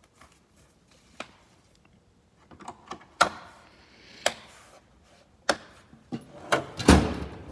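Tools and metal tool-chest drawers being handled: a string of separate clicks and clanks, with the heaviest thud about seven seconds in.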